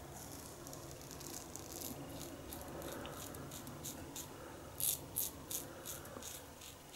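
1930s Gillette "New" long comb double-edge safety razor scraping through lathered stubble in short strokes, a crisp rasp with each pass. The strokes come quicker and louder about five seconds in.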